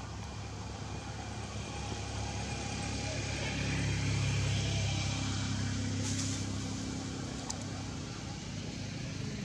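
Motor vehicle engine running with a low, steady hum that grows louder toward the middle and then fades.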